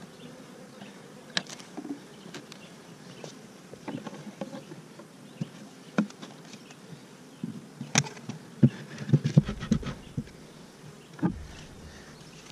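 Honey bees buzzing around an open hive, with wooden knocks and clunks as a hive box and the metal-topped outer cover are set back on. The knocks come singly at first, then in a quick cluster about eight to nine and a half seconds in, with one more near the end.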